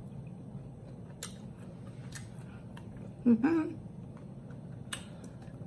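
Close-up chewing of a mouthful of sauced food, with a few soft wet mouth clicks and a short hummed 'mm' about three seconds in.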